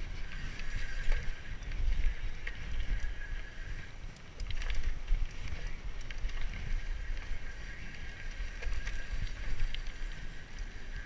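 A BMX bike ridden over a dirt jump track: uneven rumble of wind on the microphone and tyres rolling on dirt, with a few sharp knocks and rattles from the bike over the bumps, the clearest about halfway through.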